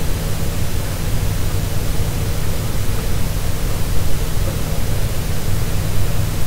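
Steady hiss with a low electrical hum under it: the noise floor of the recording microphone, with no other sound.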